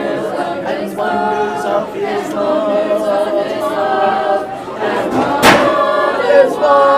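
A group of people singing together without accompaniment, holding long notes, with a sharp knock about five and a half seconds in.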